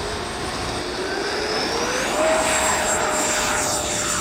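Electric ducted-fan whine of an FMS F-18 80 mm EDF model jet, with a steady rush of air. The pitch rises over about two seconds, then holds steady at higher power.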